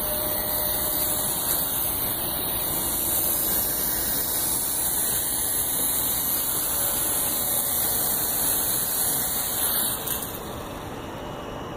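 WLtoys V929 mini quadcopter's small motors and propellers running with a steady high-pitched whirring hiss, dropping away about ten seconds in.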